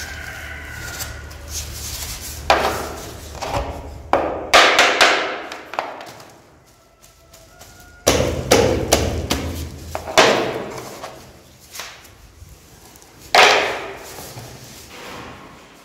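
Laminate floor planks being knocked into place with a hammer: a run of sharp wooden knocks at irregular intervals, some in quick clusters.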